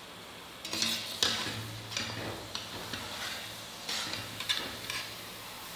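Methi muthiya deep-frying in hot oil in a steel pan with a steady sizzle. From about a second in until near the end, a spoon stirs the dumplings in a run of short scrapes and knocks against the pan.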